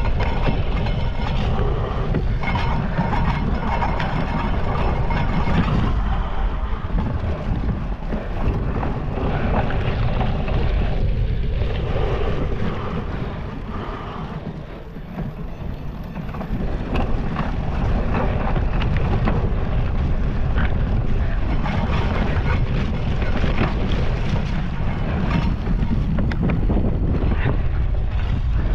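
Wind rushing over a GoPro's microphone as a cyclocross racer rides at speed, with the bike rattling over rough ground; it eases for a few seconds about halfway through.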